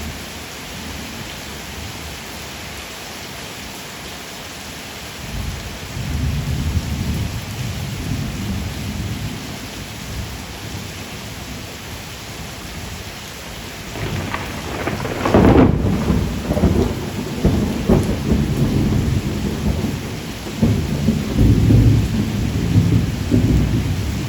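Steady rain with rolling thunder: low rumbles come in about five seconds in and swell to the loudest peal a little past the middle, then keep rumbling.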